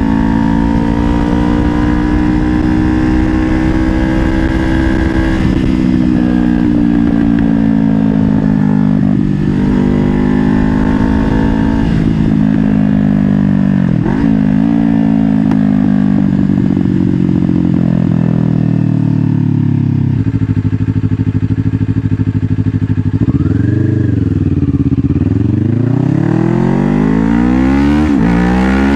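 Kawasaki Ninja 500's parallel-twin engine under way. Its pitch drops briefly with gear changes a few times, sits lower for a while about two-thirds through, then rises and falls and climbs again as the bike accelerates near the end.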